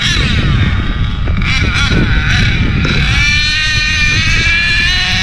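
HPI Savage X4.6 nitro RC truck's engine revving up and down, then held at a high, steady pitch for the last couple of seconds.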